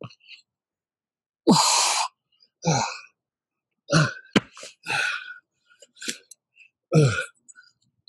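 A man's forceful breathing and grunts of effort during sandbag burpees with an overhead press: a long hard exhale about a second and a half in, then several short grunts that fall in pitch.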